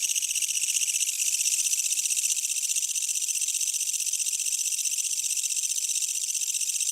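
A katydid, taken by the uploader to be a yabukiri (Tettigonia orientalis), calling with a continuous high, rapidly pulsed shaa-shaa buzz. The buzz cuts off abruptly at the very end.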